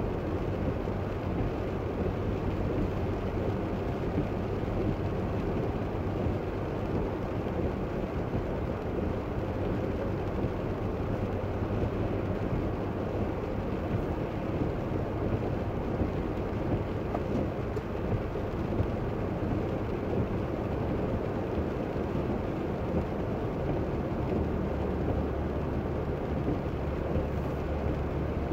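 Steady car-interior road noise while driving on a wet road: tyres on wet pavement and a low engine drone, which shifts lower near the end.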